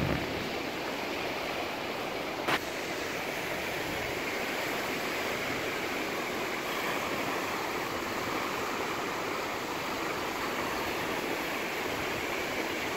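Swollen river in flood, its fast brown water rushing steadily and churning into breaking standing waves. A single brief click about two and a half seconds in.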